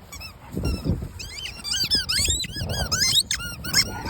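A dog chewing a squeaky toy, squeezing out a fast run of high, bending squeaks from about a second in to near the end, with a few dull thumps of the toy being mouthed.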